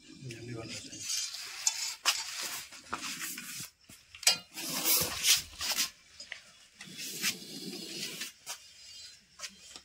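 Irregular scraping and clattering of objects being handled and shifted, with several sharp knocks.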